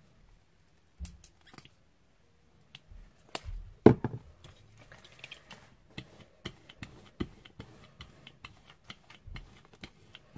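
Small clicks and knocks of craft tools handled on a desk: a paint tube and a brayer being set down and picked up, with the loudest knock about four seconds in. A run of light irregular ticks follows as a rubber brayer works paint across a gel printing plate.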